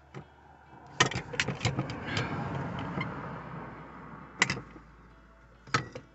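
A sharp knock, then a few seconds of clatter and rustling with more knocks, followed by two single sharp knocks near the end.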